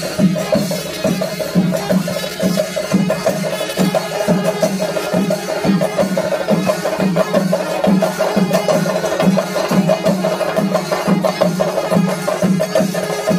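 Traditional percussion music: drums struck in a quick, even beat, with sharp wooden-sounding strokes.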